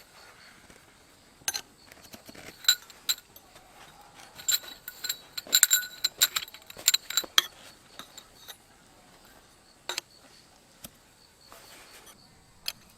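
Light clinking of hard objects knocked together: a run of sharp, ringing clinks, bunched in the first half and then only a few single clinks.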